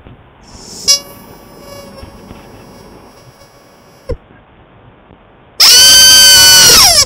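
Rubber chicken squeezed twice: a long, steady squeal of about three seconds that cuts off with a click, then a very loud, shorter squawk that drops in pitch at its end.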